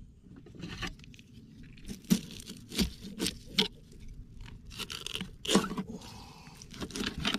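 Knife cutting a whole baitfish into cut bait on a cutting board: a string of short crunches and scrapes as the blade goes through the fish and hits the board.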